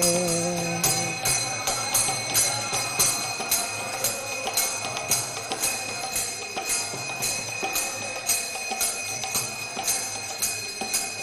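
Brass hand cymbals (kartals) and a ringing aarti bell keep an even beat of about two strikes a second, over a steady high ringing. The last sung note fades about a second in.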